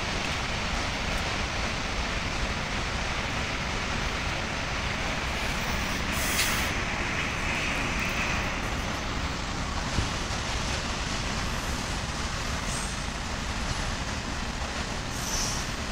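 Railway station noise: a steady rumble and hiss, with a short burst of hissing air about six seconds in and a single click near ten seconds.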